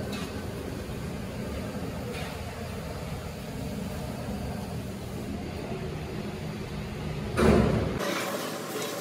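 Steady low machine noise from heavy workshop machinery running, with one brief loud knock about seven and a half seconds in; the sound changes abruptly near the end.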